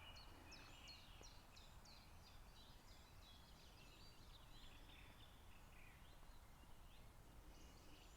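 Faint birdsong: a quick run of short, high chirps and trills, densest in the first half, with a few more calls near the end, over a faint low background hum.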